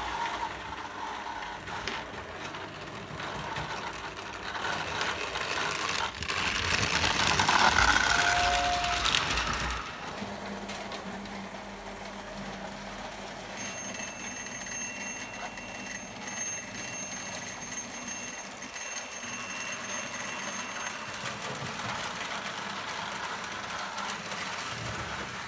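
Prewar Lionel O gauge toy trains running on three-rail tinplate track: a steady rumble that swells about seven to nine seconds in, with a brief two-note whistle near its peak. From about fourteen to twenty-one seconds a high tone sounds over it, broken by short regular gaps.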